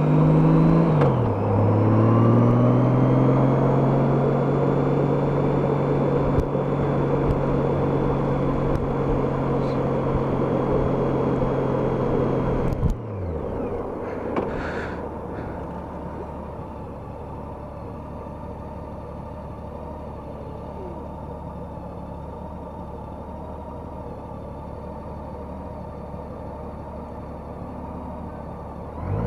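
Honda F6B's flat-six engine heard from the rider's helmet, running steadily at road revs with a brief dip in revs about a second in. About 13 seconds in the revs fall away sharply and it settles to a quieter, low steady running.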